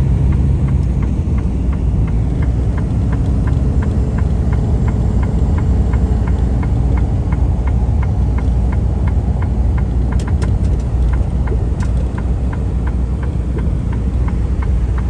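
Semi truck's diesel engine running with a steady low rumble heard from inside the cab, with a regular light ticking several times a second over it.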